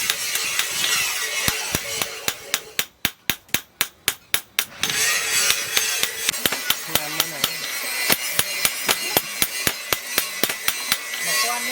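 Hand hammer striking steel on an anvil in quick, even blows, about three to four a second. A steady rushing noise runs beneath the blows, except for about two seconds near the middle where the strikes stand alone.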